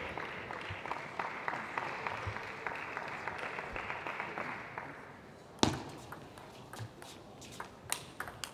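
Background noise with small ticks fades out, then a few sharp clicks of a table tennis ball being hit and bouncing, the loudest about five and a half seconds in.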